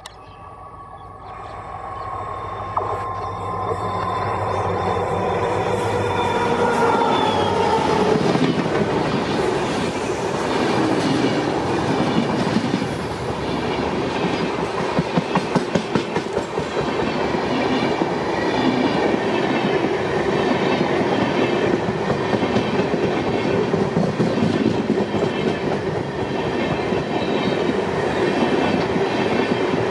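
An Indian Railways WDP4D diesel locomotive approaches and passes at speed with an express train, sounding a long horn whose pitch falls as it goes by; the horn ends about eight seconds in. The coaches then rush past with a steady clickety-clack of wheels over rail joints, and a quick run of sharper clicks comes around the middle.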